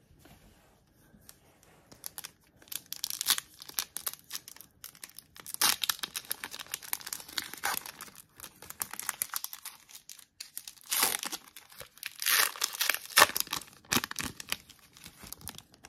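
Foil trading-card pack wrapper being crinkled and torn open, in irregular clusters of crackling that start about two seconds in.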